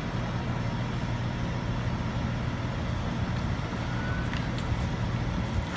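A fire engine's engine running steadily with a low hum, a steady hiss over it, and a few faint clicks near the middle.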